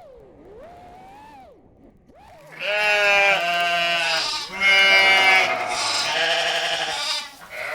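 FPV quadcopter motors whining, rising and falling in pitch with the throttle. About two and a half seconds in, much louder music starts: held synth notes changing in steps over a low bass note.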